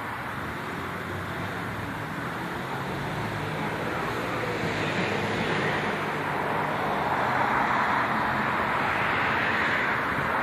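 Road traffic passing nearby: a steady rush of tyres and engines that gradually grows louder through the second half.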